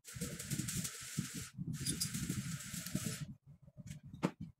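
Two bursts of hissing, like air or a spray, each about a second and a half long, followed by a few light clicks and taps near the end.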